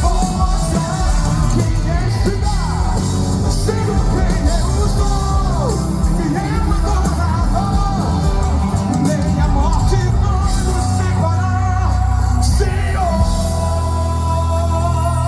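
Live band playing gospel worship music with heavy bass and singing. About thirteen seconds in, the music settles into a long held chord over steady bass.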